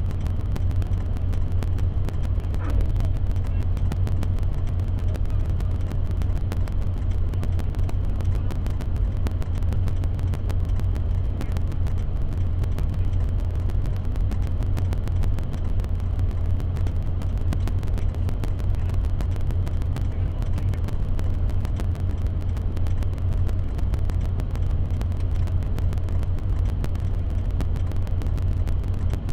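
A vehicle engine running steadily with a low, even rumble that does not change.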